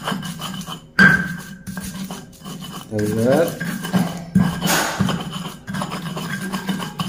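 Stone pestle grinding turmeric and garlic in a stone mortar: a rasping scrape of stone on stone, with a few sharp knocks.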